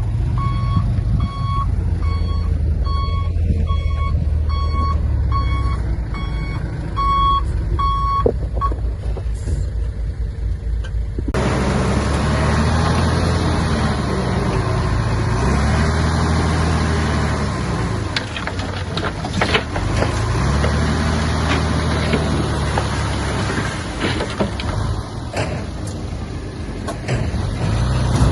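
A heavy diesel engine idles under a reversing alarm that beeps about one and a half times a second; the beeping stops after about eight seconds. After about eleven seconds, a heavy diesel engine revs up and eases off again and again, with metal clanks and knocks, as an earth-moving machine works the soil.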